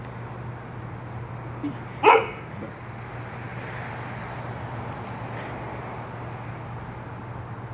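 A husky-type dog gives one short, loud bark about two seconds in, with a softer yip just before it, over a steady low hum.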